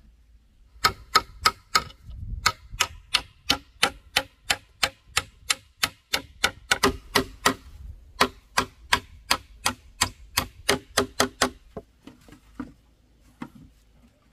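A rapid run of sharp knocks, about three a second, for about ten seconds, with a brief break in the middle; a few scattered, fainter knocks follow near the end.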